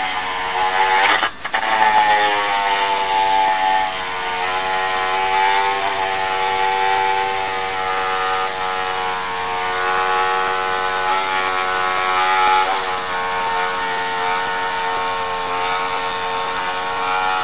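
Dremel rotary tool running at its lowest speed, its sanding bit grinding away the edge of an ABS plastic armour piece. The motor whine is steady but wavers in pitch as the bit bears on the plastic, with a brief drop about a second in.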